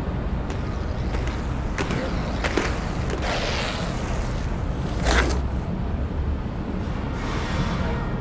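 Outdoor city ambience: a steady low rumble of traffic with a few scattered sharp clicks and knocks.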